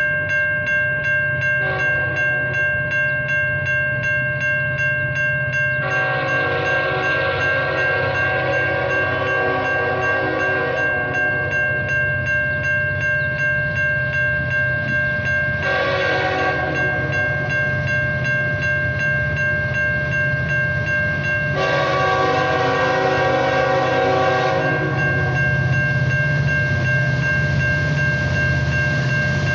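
Railroad crossing bells ringing steadily while an approaching Norfolk Southern freight locomotive sounds its horn in several blasts: a long one about six seconds in, a short one near the middle, and another long one about three quarters through. A low locomotive rumble grows louder in the second half.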